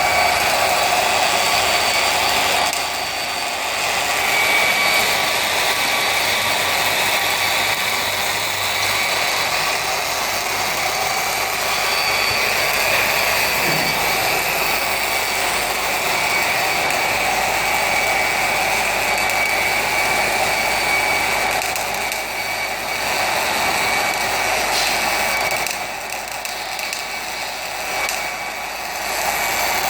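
Power machinery running steadily, with a steady high whine over a noisy mechanical sound.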